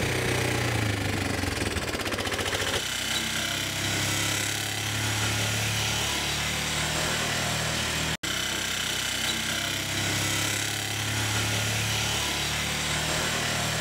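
Small motorbike engine running steadily while being ridden, heard from the rider's seat, with a momentary break about eight seconds in.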